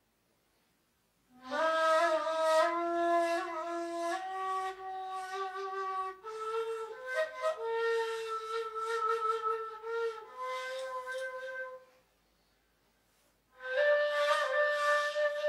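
Solo ney, the end-blown reed flute of the Mevlevi Sema, playing a slow, breathy melody in long held notes that step upward in pitch. The phrase starts about a second in and stops near the end. After a pause of about a second and a half, a new phrase begins.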